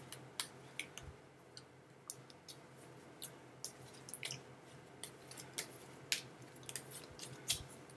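Faint, irregular small clicks and taps, a few a second, of a deck of reading cards being handled, over a low room hum.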